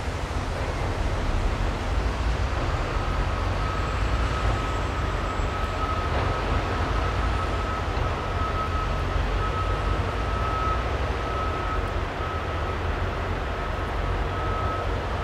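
Steady low rumble and hiss of heavy construction machinery working at a distance, with a thin, high whine that comes in about three seconds in and drops out briefly a few times.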